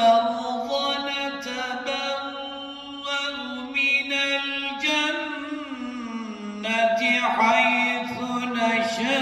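A man's voice chanting Qur'an recitation (tilawat) in Arabic, drawn out in long, ornamented held notes. The pitch sinks about midway, and a new, louder phrase begins about seven seconds in.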